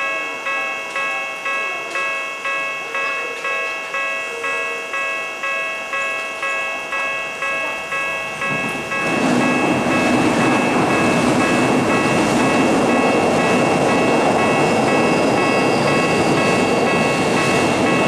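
Japanese level-crossing warning bell ringing steadily at about two strokes a second. About nine seconds in, a Tokyu 5050 series electric train reaches the crossing, and the louder running noise of its wheels on the rails takes over while the bell keeps ringing underneath.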